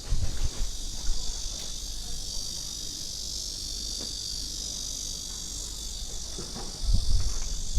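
Steady high-pitched chorus of insects, such as cicadas or crickets, shrilling without a break. Low thuds and rumbles come at the very start and again near the end.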